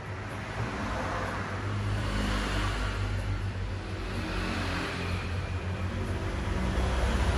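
Steady low background rumble of road traffic, growing a little louder near the end.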